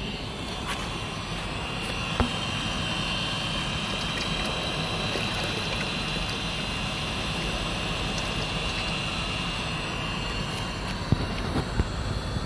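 Webasto Thermo Top V diesel water heater running, its combustion air fan giving a steady whine. Water from the circulation hose splashes into a steel bucket. A few sharp knocks come near the end.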